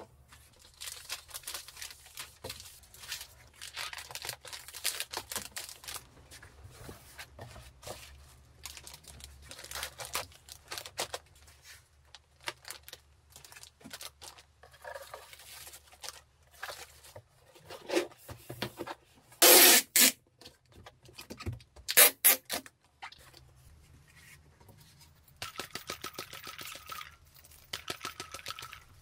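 Packing-material rustle and crinkle: paper and plastic wrapping handled and items pressed into a bubble-wrap-lined cardboard box, with two short, loud rips about two-thirds of the way through. Near the end, a sticky lint roller rolls over fabric zip pouches with a steady rasp.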